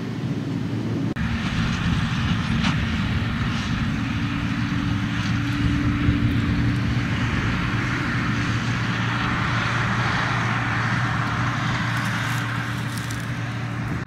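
New Holland TM165 tractor's six-cylinder diesel running steadily under load while pulling a New Holland BigBaler 1290 large square baler through wheat straw, with the baler's machinery working alongside. A few sharp knocks stand out.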